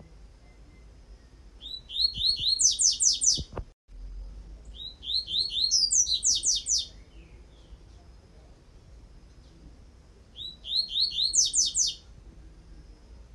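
Double-collared seedeater (coleiro) singing its 'tui-tui' song type: three phrases of fast, evenly repeated high notes, each phrase lasting about a second and a half to two seconds.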